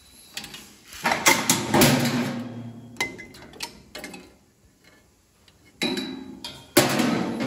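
Metal clicks and clanks from handling a gear-shift cable and its fittings on a steel chassis, in two clusters with a quiet gap between them.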